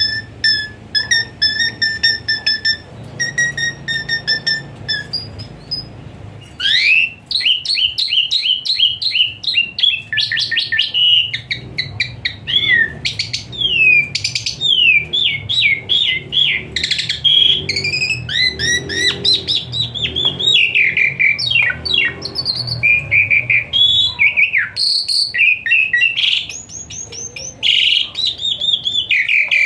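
A jalak suren (pied starling) singing its varied song, full of imitated phrases. It opens with short clear whistles repeated in a few quick groups, then about six seconds in breaks into a loud, fast run of rising and falling sweeps and rapid trills.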